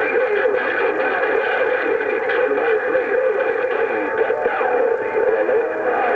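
CB radio receiver on channel 6 (27.025 MHz) with several distant stations transmitting at once: garbled, overlapping voices and static through the radio's speaker, none of them readable.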